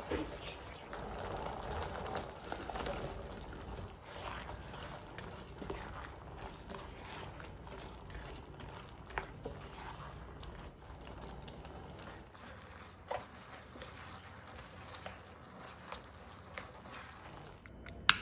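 A spatula stirring thick Manchurian gravy and fried chicken pieces in a non-stick frying pan: wet stirring sounds with small taps and scrapes of the spatula on the pan. A single sharp click comes near the end.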